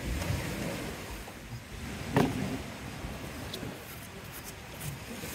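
Low rumbling handling noise as nylon trimmer line is pulled through a string trimmer's bump-feed head, with one sharp knock about two seconds in.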